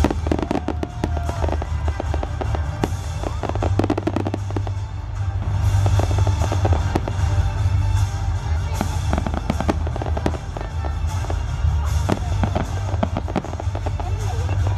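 Aerial fireworks shells bursting in a display: a dense run of sharp bangs and crackling reports in quick succession, over a steady low rumble.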